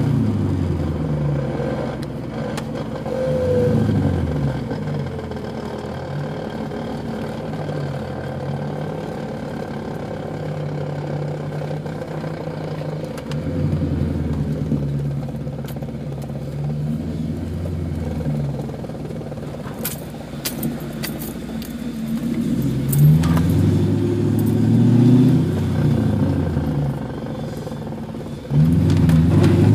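1996 Ford Mustang SVT Cobra's 4.6-litre DOHC V8 heard from inside the cabin while driving, its revs rising and falling several times with gear changes, then climbing under hard acceleration near the end. A few sharp clicks come about two-thirds of the way through.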